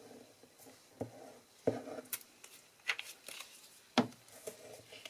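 Handling noises of paper crafting: about five short clicks and light taps, the loudest near the end, as liquid glue is squeezed from a plastic glue bottle onto cardstock lying on a craft mat.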